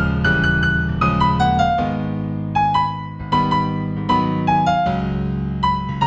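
A slow new-age piece in F major on solo piano or keyboard. A simple melody of single struck notes steps down and climbs back over sustained low chords.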